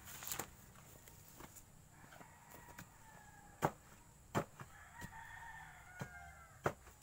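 A rooster crowing faintly: a shorter call about two seconds in, then a long crow from about five seconds in until near the end. Four sharp clicks, the loudest sounds, come between about three and a half and six and a half seconds in.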